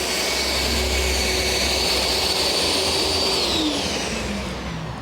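HTC 500 triple-head concrete floor grinder running with a steady whine over dust-extractor noise, then switched off about three seconds in, its motor whine falling in pitch as it winds down.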